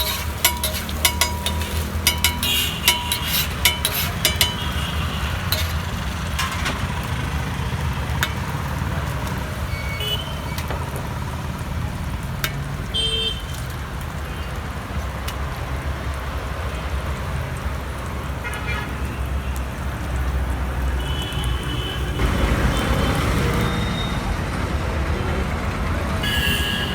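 Steady street traffic rumble with several short vehicle horn toots scattered through it. A run of sharp clicks in the first few seconds.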